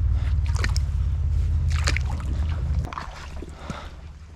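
Wind buffeting the microphone as a low rumble that drops away about three seconds in, with a few light steps and splashes as someone wades barefoot through a shallow, stony creek.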